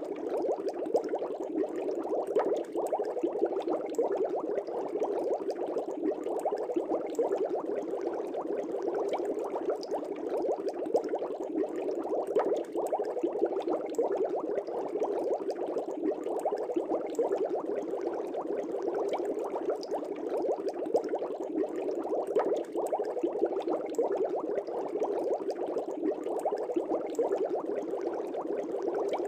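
Aquarium air bubbles rising and breaking at the surface in a steady, dense bubbling.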